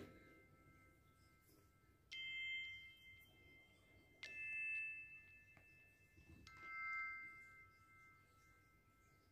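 Soft background music: three chime-like mallet notes, about two seconds apart, each struck and left to ring out.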